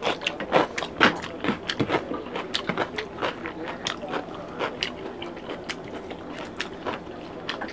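Close-up eating sounds: chewing and lip smacking, with fingers mixing rice and curry on plates and a serving spoon scraping a bowl, heard as many short irregular clicks and smacks, the loudest about a second in.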